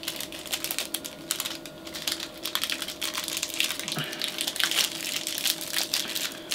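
A small ration-pack packet crinkling and crackling as it is worked open by hand, with quick, irregular clicks.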